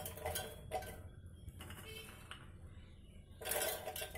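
Handfuls of soaked dried peas dropped into a stainless-steel mixer-grinder jar, clattering against the steel in a few separate bursts. The last burst, near the end, is the loudest.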